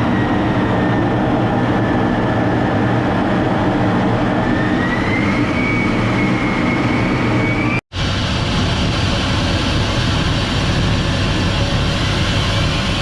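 F-35 Lightning II fighter's jet engine running on the ground: a steady low rumble under a high whine that rises in pitch about halfway through. The sound drops out for an instant about eight seconds in, then carries on.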